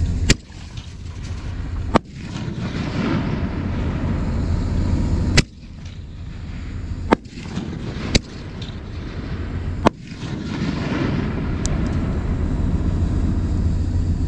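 Fireworks going off: six sharp bangs spread unevenly over about ten seconds, with a steady low rumble underneath.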